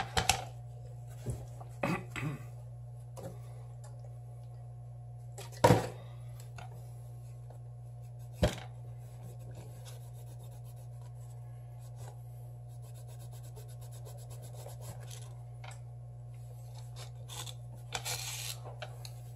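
Samsung Galaxy S7 edge metal midframe handled on a wooden cutting board: several sharp knocks as it is set down and turned, the loudest about six seconds in, then light scraping and ticking as a small tool works along its edge, and a rasping scrape near the end. A steady low hum runs underneath.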